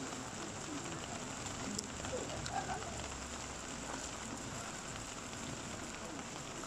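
A brush fire crackling: a steady hiss with scattered pops and snaps.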